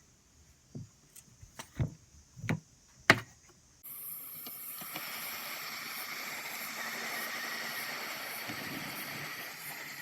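A handful of sharp plastic clicks and taps, about six over three seconds, from a smartphone's parts being handled and pressed together. About four seconds in, a steady hissing noise starts abruptly and runs on, with faint even ticking in it.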